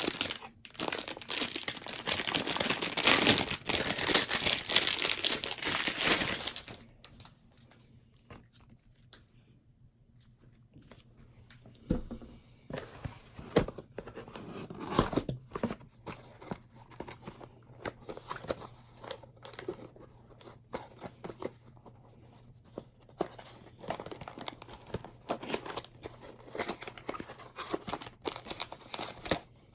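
Plastic packaging on a laptop charging brick being torn and crinkled, dense and loud for about the first six seconds. After that only scattered soft rustles and clicks of handling are left, over a faint steady low hum.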